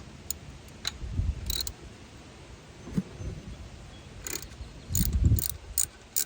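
Metal hand tools clicking and knocking, with a ratchet wrench clicking a few strokes near the end as work starts on the tensioner bracket bolts.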